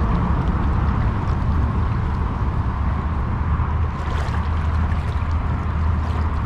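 Creek water sloshing and gurgling around a camera held at the water's surface: a steady rushing noise with a heavy low rumble.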